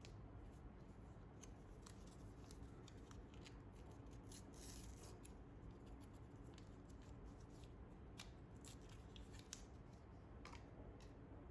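Faint hand-handling sounds of unboxing packaging: scattered small clicks and scratchy rustles, with a denser rustle about four to five seconds in.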